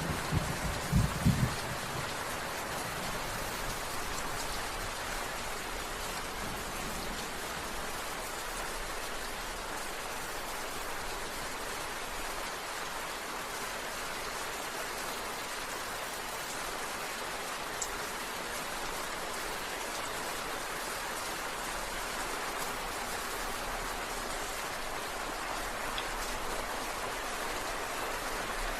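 Steady, heavy rain falling on surfaces, an even dense patter. A low rumble of thunder dies away in the first second or two.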